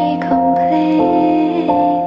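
Background music: soft, gentle chords held for about half a second each.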